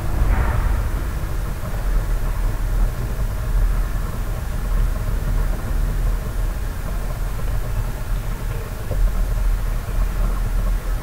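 Steady low rumble of background noise, without distinct events.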